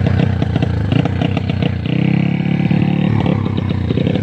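Single-cylinder Dompeng diesel engine of a homemade mud motorbike, running with a rapid chugging beat. About two seconds in, a smoother, steadier engine note takes over for about a second before the chugging returns.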